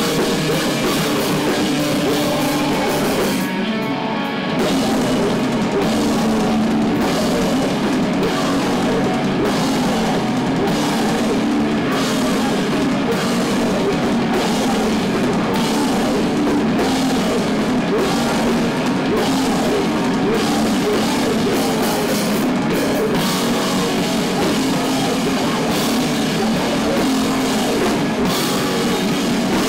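A loud heavy rock band playing live: distorted electric guitars over a drum kit with crashing cymbals, the cymbals dropping out briefly about four seconds in before the full band comes back in.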